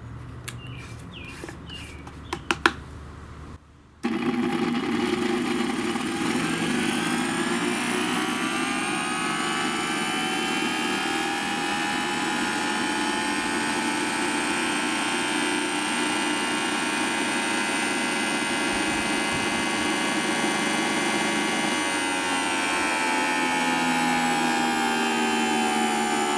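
Thunderbolt 1000ATSC siren chopper run up on the bench. After a few clicks, it spins up about four seconds in, its wail rising in pitch for several seconds and then holding steady, with a slight shift near the end.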